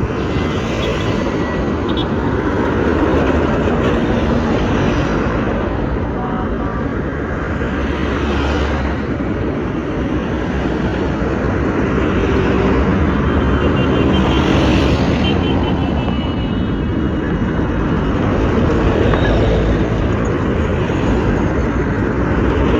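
Continuous vehicle and road noise with a heavy low rumble, swelling and easing slowly.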